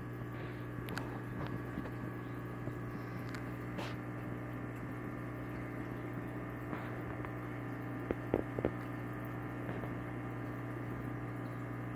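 Steady electric hum of aquarium equipment with faint bubbling water. A few short knocks come about eight seconds in.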